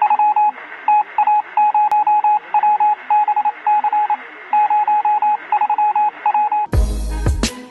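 Intro sound effect of a radio signal: a single beeping tone keyed on and off in short and longer pulses, Morse-code style, over a buzzing, thin background. Near the end, full-range intro music comes in with a heavy hit.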